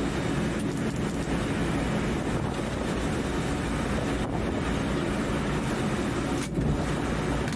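Mark VI patrol boat running at speed: a steady engine drone under a rush of wind and water. A single short sharp sound cuts through about six and a half seconds in.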